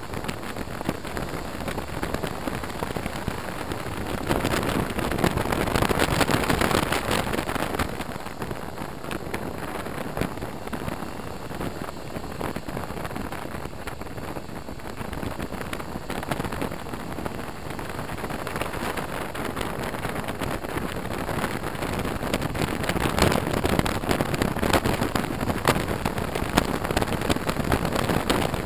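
Wind noise on a helmet-mounted camera's microphone while riding a BMW R1200RT motorcycle, with the bike's running mixed in; it grows louder about four seconds in and again near the end.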